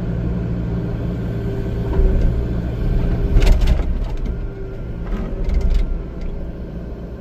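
Excavator diesel engine running and working under load, heard from the cab, swelling louder for a few seconds in the middle, with a few short knocks and rattles about three and a half and five and a half seconds in.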